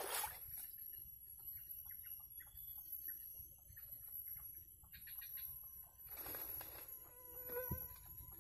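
Faint bird clucking: short, scattered calls, with a few clearer pitched clucks near the end.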